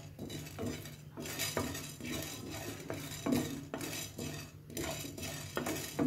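Spatula stirring and scraping roasting chana dal, urad dal, peppercorns, cumin and cinnamon around a nonstick frying pan, with light knocks of the spatula on the pan about twice a second. A steady low hum lies underneath.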